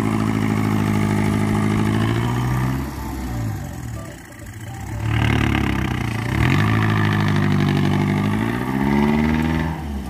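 Small flatbed truck's engine revving as it drives across the soft, dug-up field soil, in two long pushes with a dip in revs about four seconds in; the revs rise again near the end, then drop away.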